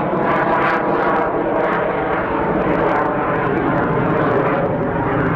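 Airplane engine noise, loud and steady.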